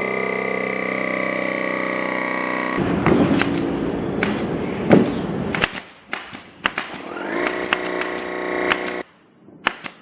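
Bultrax BL21 cordless battery air compressor running with a steady machine tone. About three seconds in it gives way to a noisy, clattering stretch with sharp clicks. The steady running returns and cuts off suddenly shortly before the end, followed by a few clicks.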